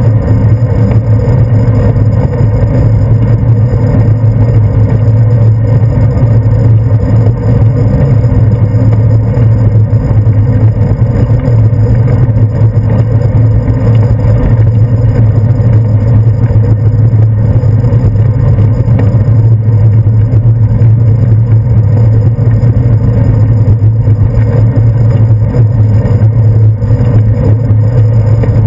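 Steady low rumble of wind and road vibration picked up by a bicycle's handlebar-mounted camera while riding along a paved path.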